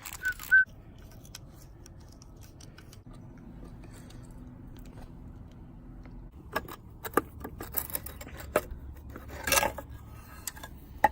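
Light metallic clicks and clinks of hand tools and small engine parts being handled during an engine teardown, scattered through the second half, with a short rustling scrape about nine and a half seconds in.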